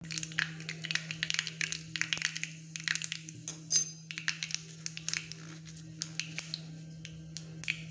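Mustard seeds popping and crackling in hot oil in a small tempering pan, many quick pops at first that thin out toward the end: the seeds spluttering, the stage of the tempering at which asafoetida goes in.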